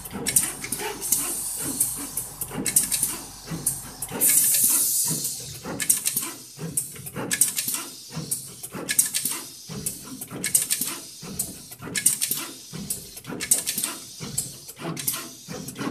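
SMT460 pick-and-place machine at work: the placement head shuttles back and forth with quick pneumatic hisses from the nozzles' vacuum and blow-off valves as parts are picked and placed. The hisses come in a quick, uneven series, a little under two a second, and one lasts about a second near the four-second mark.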